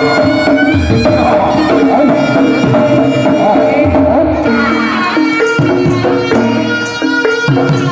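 Javanese folk ensemble music for a barongan dance: hand drums and tuned gong-chime pots playing a steady rhythm under a held, stepping melody, with sharp metallic strikes joining in the second half.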